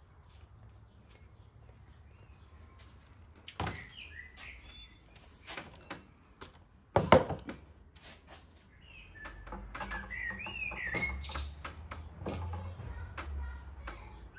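Small birds chirping outdoors over a scatter of light clicks and knocks from handling things on a table, with one loud sharp clatter about seven seconds in. A low rumble comes in from about nine seconds.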